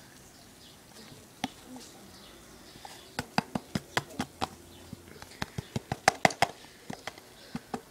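A run of sharp clicks and taps, several a second and uneven, starting about three seconds in after a single click, as things on the table are handled.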